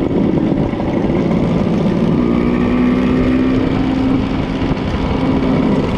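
Classic Vespa scooter's two-stroke single-cylinder engine running on the move, mixed with wind rushing over the handlebar-mounted camera's microphone. From about two seconds in, the engine note holds steady.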